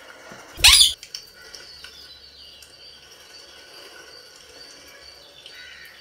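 A rose-ringed parakeet makes one brief, loud, harsh burst of sound a little over half a second in, followed by faint, thin high tones.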